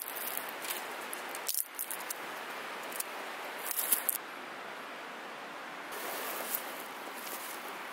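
Dry twigs snapping and crackling as thin branches are broken off a dead branch and trimmed with a knife. After about four seconds, quieter rustling as a canvas tarp and a stick peg are handled.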